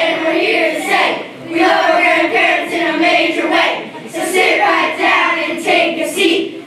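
Children's choir singing together in phrases, with brief breaks between them.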